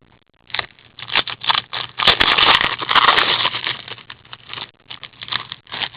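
Foil trading-card pack wrapper crinkling and tearing as it is opened and handled, a quick irregular rustle that is densest and loudest from about two seconds in.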